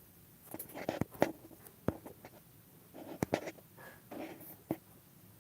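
Scattered light clicks and taps at uneven intervals, with a few short rustles in between: small objects being handled at close range.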